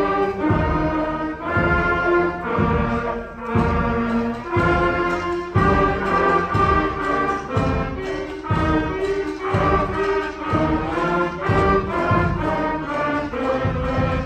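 School concert band of brass and woodwinds playing a loud piece, with sustained chords punctuated by strong accented hits at a steady beat.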